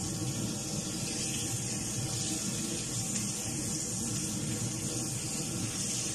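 Octopus pieces sizzling steadily in hot oil in a frying pan.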